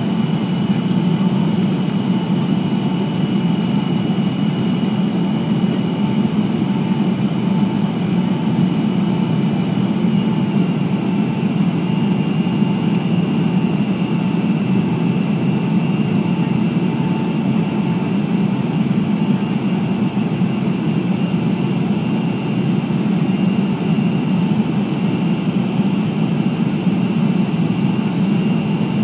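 Steady cabin noise of a Boeing 727 on approach: a dense, even roar of airflow and its three rear-mounted Pratt & Whitney JT8D turbofans, with a faint steady whine on top.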